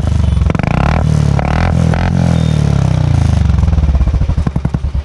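Royal Enfield Classic 350's single-cylinder engine exhausting through an aftermarket 'mini shot bottle' silencer, revved once: the revs climb for about two seconds, then drop back to a thumping idle near the end. Very loud, with a lot of bass.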